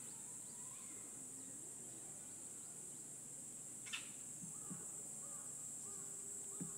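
Steady high-pitched drone of insects, with a single short click about four seconds in.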